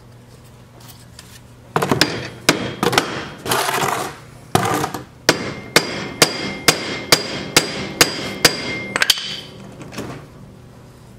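Hammer blows on the Allen wrench set in the Hydro-Gear transmission's stuck drain plug, to shock the plug loose. A few uneven knocks and scrapes come first, then a steady run of about eight ringing metal taps, roughly two a second.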